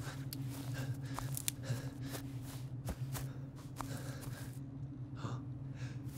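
A low steady drone under scattered soft footsteps and rustles on the forest floor, with a couple of short breaths near the end.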